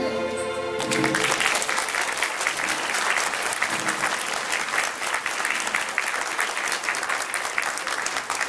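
The song's closing chord dies away in the first second, then a crowd applauds steadily.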